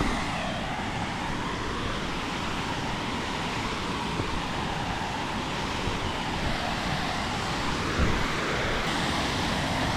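Steady rush of falling water from a waterfall, an even noise with no breaks.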